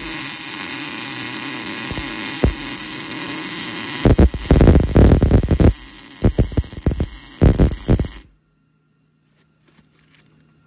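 Power cutting tool cutting into the steel truck frame: a steady hiss, then loud crackling and sputtering from about four seconds in, stopping abruptly about eight seconds in.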